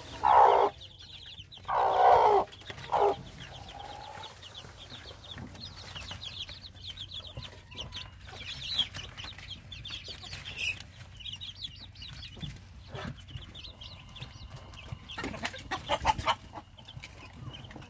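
Korean native hen clucking: three loud clucks in the first three seconds and a few more near the end. Her chicks keep up soft, high peeping in between.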